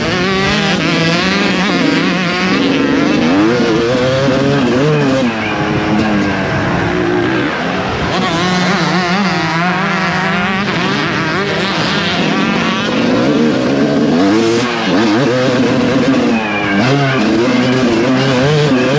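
Suzuki RM250 two-stroke single-cylinder motocross engine, heard from on board while riding, revving up and falling off again and again, its pitch rising and dropping every second or two.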